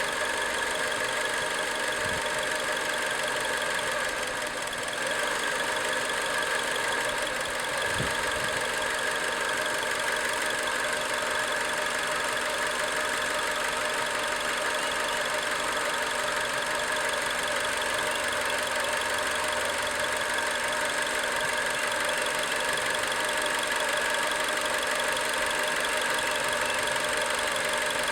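Acura RSX Type-S 2.0-litre four-cylinder engine running steadily with a ticking noise that comes on once the engine is warm; the cause is unknown to the owner.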